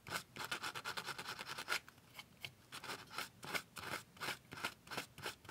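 A small cut metal piece being smoothed by hand, quick back-and-forth rasping strokes against its edge, fast at first and then about three strokes a second. The cut edges are being deburred so they are smooth.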